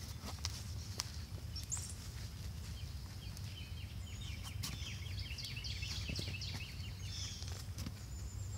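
Gloved hand raking through loose potting soil, giving soft rustling with scattered small clicks over a steady low rumble. A bird chirps a quick series of notes in the middle.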